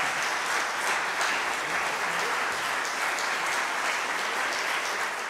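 Concert audience applauding steadily, many hands clapping at once, as the performers bow.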